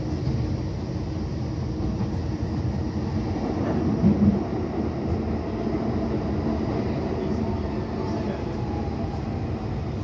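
Docklands Light Railway train heard from inside the front car: steady running noise of wheels on rail and traction drive, with a brief louder thump about four seconds in. Faint falling tones near the end as it slows into a station.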